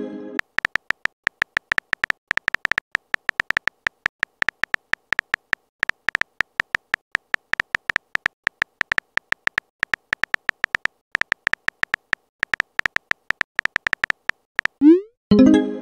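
Chat-app keyboard sound effect: short, high ticks, several a second and unevenly spaced, as a text message is typed letter by letter. Near the end comes a short rising blip and a louder burst of the app's message-sent sound.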